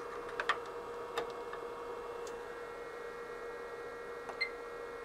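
Steady electrical hum with a faint even tone, typical of bench test equipment, broken by a few light clicks and taps.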